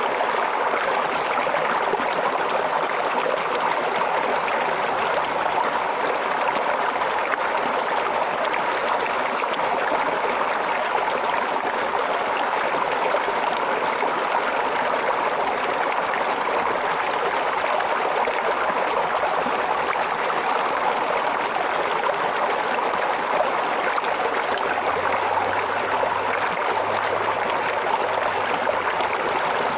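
Stream water running and trickling steadily, with no break.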